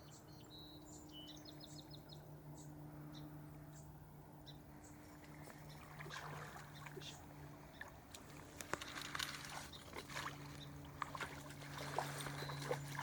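Faint outdoor ambience with a steady low hum. A bird chirps a few times in the first second or so. Irregular rustling and clicking start about halfway through and grow busier toward the end.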